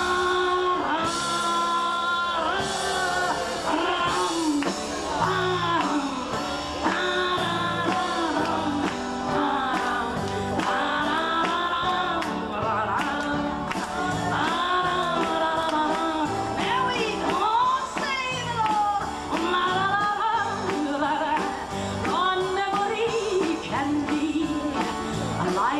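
A woman singing a French chanson with vibrato, backed by a small live cabaret band with a steady drum beat.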